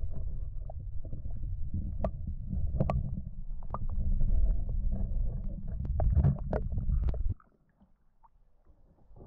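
Muffled low rumble of water moving against an underwater camera, with scattered sharp clicks and knocks; it cuts off suddenly a little over seven seconds in as the camera is lifted out of the water.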